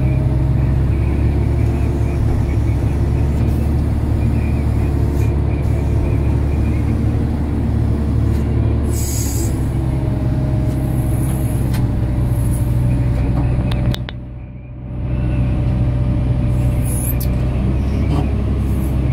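Cat 988H wheel loader's C18 diesel engine running steadily at about 1,500 rpm, heard from inside the cab. The sound drops away briefly about 14 seconds in, then returns.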